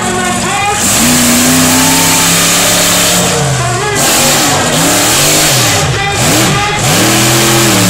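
Illuminator monster truck's engine revving hard, its pitch climbing and dropping several times as the throttle is worked, with a loud rushing exhaust noise from about a second in.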